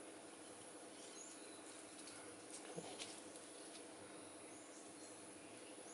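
Near silence: faint room tone, with two faint clicks a little under halfway through, of small plastic model-kit parts being handled and fitted together.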